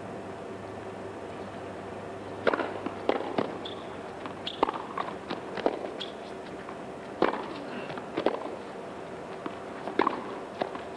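Tennis ball struck by rackets and bouncing on the court in a baseline rally: sharp, spaced pops starting about two and a half seconds in, with a few short shoe squeaks between them.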